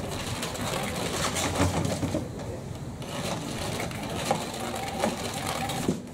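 Electronic cat toy running: a small motor under a fabric skirt drives a wand that moves around beneath the cloth, whirring with rustling and clicks. It cuts off suddenly near the end.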